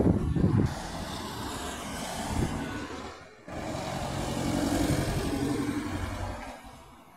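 Lorries on the road: an articulated lorry rumbling as it pulls away, then, after a cut, an Iveco box truck's diesel engine and tyres passing close by, growing louder to a peak about five seconds in and fading away near the end.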